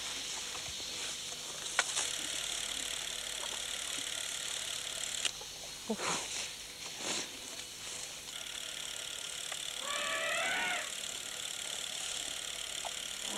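Scattered clicks and short rustles, with a handheld film camera clicking and Asian elephants pulling at sugarcane leaves, over steady VHS tape hiss. A short wavering squeal comes about ten seconds in.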